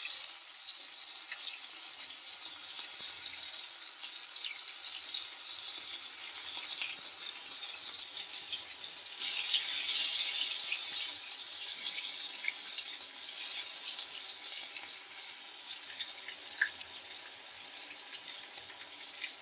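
Marinated boneless chicken pieces deep-frying in a pan of hot oil: a steady sizzle with many small crackles and pops. Loudest at first as pieces are dropped into the oil, easing off gradually toward the end.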